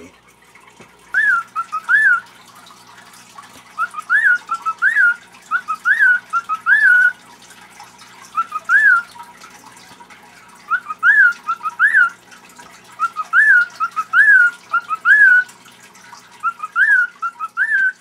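Cockatiel whistling short rising-and-falling notes in phrases of three to five, with pauses of a second or two between phrases.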